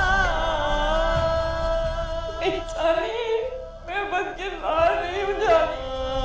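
Background music with a singing voice: long held notes with vibrato, then a more broken sung phrase from about two and a half seconds in, over a steady held drone.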